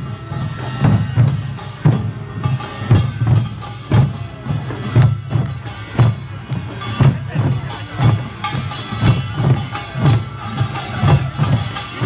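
Pungmul drums, Korean folk percussion, playing a steady beat: heavy low strokes about once a second with lighter strokes in between.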